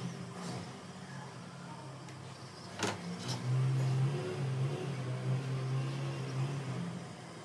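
A car engine running steadily with a low hum, with one sharp click a little before three seconds in.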